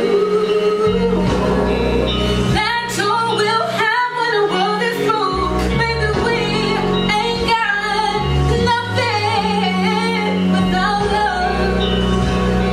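A woman singing solo over instrumental accompaniment, her voice sliding through quick runs of notes in the middle, with held low bass notes underneath that change every second or two.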